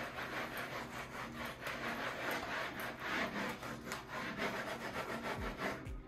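A rubber-gloved hand scrubbing the wall and backsplash behind a bathroom sink with quick back-and-forth strokes, a steady rasping rub.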